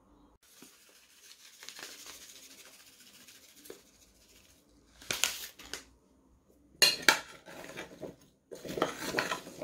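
Seasoning shaken from a packet onto diced potatoes and carrots, a faint soft hiss. Then a metal spoon stirs the vegetables, scraping and clinking against an enamel bowl in three louder bouts in the second half.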